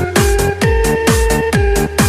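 Electronic dance music in a techno style, with a fast, steady kick-drum beat and sustained synth tones.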